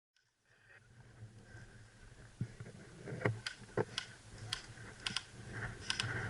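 A series of sharp, irregular clicks and taps, about a dozen over a few seconds, starting about two and a half seconds in, over a low steady background hum.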